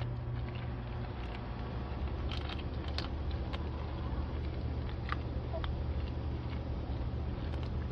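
A Doberman chewing raw meat, with scattered short wet clicks and crunches, over a steady low hum.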